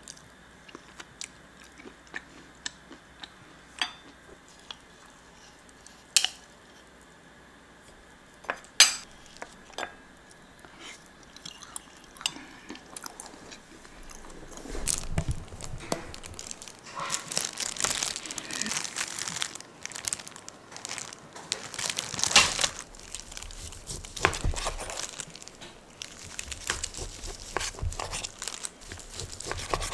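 Scattered sharp clicks of a metal spoon against a ceramic bowl, with chewing, then from about halfway dense plastic crinkling as a disposable plastic glove and bag are handled.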